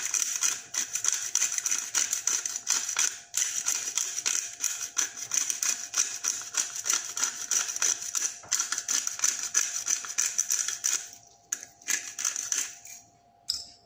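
Handheld pepper grinder twisted back and forth, grinding peppercorns in a fast run of dry clicking. It breaks off briefly a few times, pauses near the end, grinds once more and stops.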